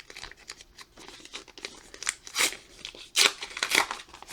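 A baseball card pack wrapper being ripped open and crinkled in the hands, in a run of sharp crackling tears that are loudest in the second half.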